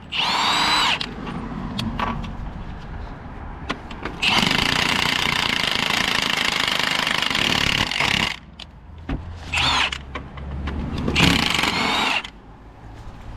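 Power gun (impact wrench) running in bursts on the gearbox mount bolts. There is a short burst with a rising whine at the start, a steady run of about four seconds in the middle, and two shorter bursts near the end.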